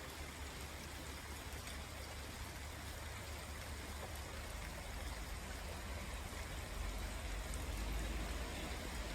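Rain falling steadily in a garden: an even hiss with faint drop ticks, over a low rumble.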